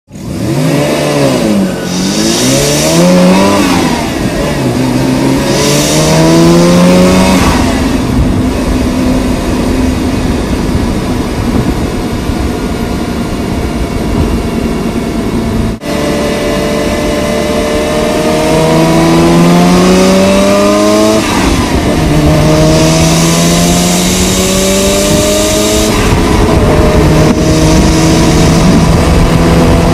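Mazda RX-7's 13B twin-turbo rotary engine heard from inside the engine bay, with no exhaust note, revving: its pitch rises and falls several times, with longer climbs in the second half and a rushing hiss at the top of the higher revs.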